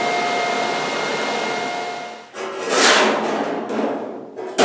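TIG welding arc on aluminum flat bar, a steady buzzing hiss that stops about two seconds in. After it come scraping and rattling noises as aluminum sheet panels are handled against the hull.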